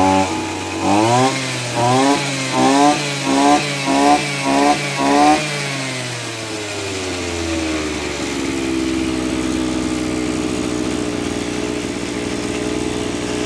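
Maruyama AD26 26cc two-stroke brush cutter engine blipped on its throttle trigger about seven times in quick succession, then dropping back to a steady idle.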